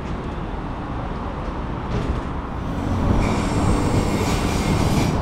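KTM commuter train running on the rails. It grows louder about three seconds in, when a high-pitched wheel squeal joins it.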